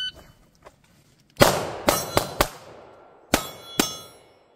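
Six pistol shots: four in quick succession about a second and a half in, then two more about a second later. Struck steel targets ring after the shots.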